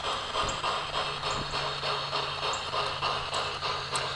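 G-scale Aristo-Craft model train running around its track loop: a steady rhythmic clatter, about four clicks a second, over a steady low hum.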